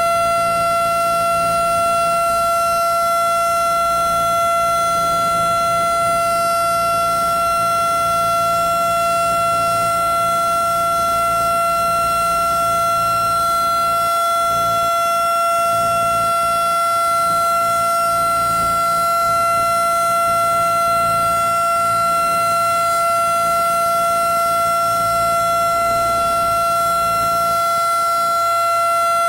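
Federal Signal STH-10 electromechanical outdoor warning siren sounding a loud, steady single-pitch alert tone, with no rise or fall in pitch.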